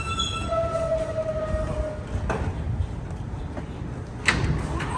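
A New York City subway E train coming to a stop at a platform, with a low rumble and high steady wheel-and-brake squeal tones that fade out within about two seconds. A single sharp burst sounds about four seconds in.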